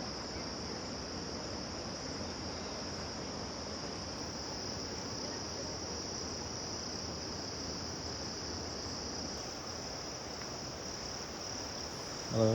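Steady chorus of tropical forest insects, a continuous high-pitched drone.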